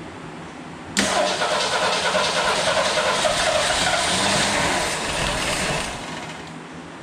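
The Gremlin's donor engine from a 1969 Rambler American being cranked on the starter for about five seconds. It starts suddenly about a second in and dies away near the end, in a start attempt now that spark has been restored.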